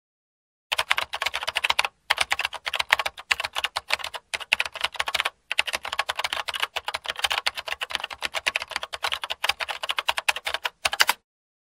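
A dog's front paws digging fast in loose dirt: a rapid stream of scratches, broken by a few short pauses.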